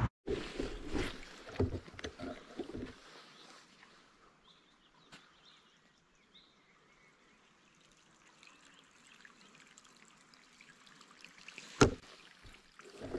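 Quiet lochside ambience with faint water lapping at the shore. There are a few dull thumps in the first three seconds and a single sharp click near the end.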